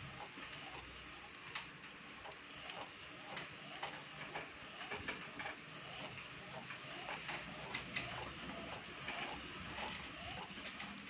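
Epson L1300 inkjet printer printing: the print head carriage shuttles back and forth across the sheet, with a run of irregular clicks and ticks from the mechanism.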